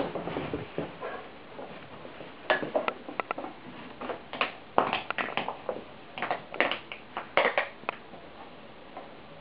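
A shar-pei chewing and batting a bottle, which gives irregular bursts of short crackles and clicks, thickest in the middle of the stretch.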